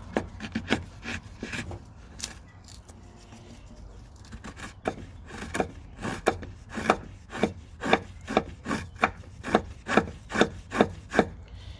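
Freshly sharpened Mora Bushcraft Black knife shaving fine feather curls off a wooden stick. The short scraping strokes come a few at first, then about two a second through the second half. The edge bites cleanly, the sign of a sharp edge.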